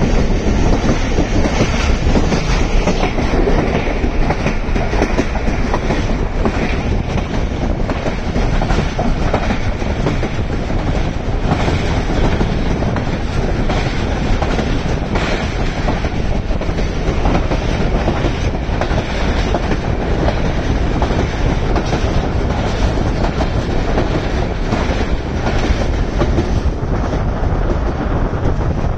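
Steady road rumble and wind noise from a vehicle driving across a bridge, with faint irregular knocks from the deck.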